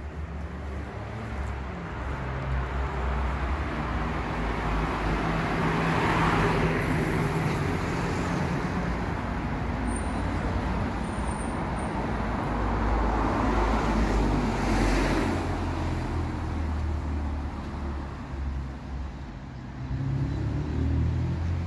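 Road traffic going by on the village street: two vehicles pass, the first about six seconds in and the second about fourteen seconds in, each swelling and fading, over a steady low engine rumble.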